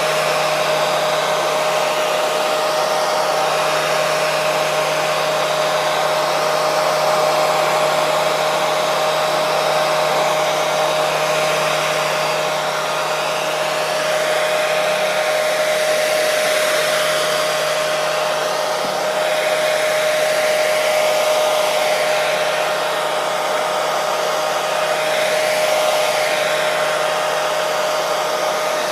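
Hair dryer running continuously: a steady rush of air with a constant motor hum, swelling and easing slightly every several seconds.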